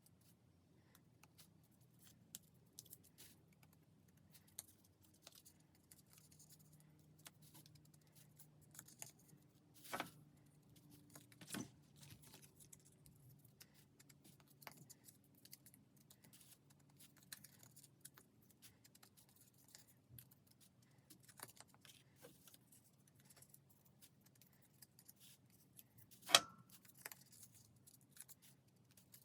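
Quiet paper-crafting handling sounds: scissors snipping and paper rustling, with a few sharper taps, the loudest near the end, over a low steady hum.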